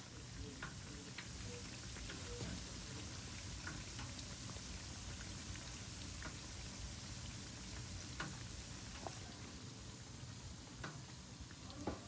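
Hot oil sizzling steadily around twisted rice-dough doughnuts deep-frying in a stainless-steel fryer, with scattered small pops and crackles and a sharper tick near the end.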